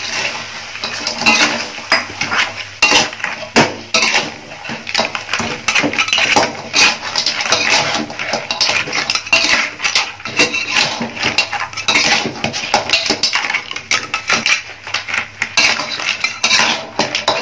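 Metal spatula scraping and clanking against a metal wok while stirring and tossing crab pieces, green mussels and corn in a thick sauce, in rapid, irregular strokes.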